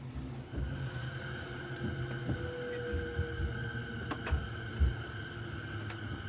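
Inside a moving JR Chuo Line rapid train (E233 series): a low running rumble, with a steady high whine that comes in about half a second in and a few sharp clicks near the middle.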